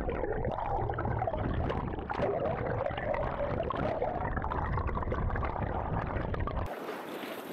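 Seawater gurgling and sloshing heard from below the surface, muffled, with a low rumble. Near the end it cuts suddenly to open air: wind on the microphone over the waves.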